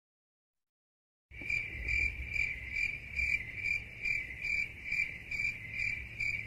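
Cricket chirping: one steady high chirp pulsing a little over twice a second. It is cut in abruptly out of dead silence about a second in, as an edited-in sound effect.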